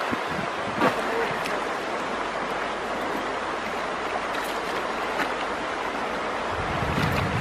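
Shallow river water running steadily over stones, with splashes as a person wades through it, the sharpest about a second in. Wind buffets the microphone near the end.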